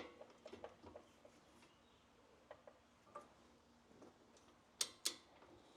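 Faint, scattered clicks and ticks of hand tools working the brake caliper bolts, with two sharper clicks close together near the end.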